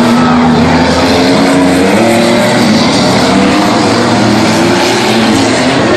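Several small cars' engines running hard on a dirt track at once, loud, their pitches rising and falling over each other as they rev.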